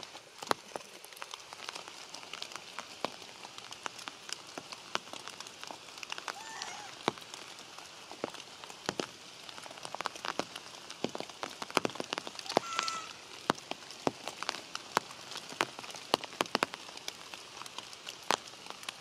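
Rain falling on foliage: a steady soft hiss with many sharp, close drops ticking irregularly throughout.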